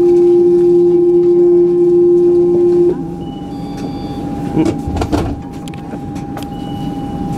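Alstom Citadis tram's door-closing warning tone: one loud steady beep lasting about three seconds, then cutting off, over the tram's steady hum. A few faint short high beeps follow later.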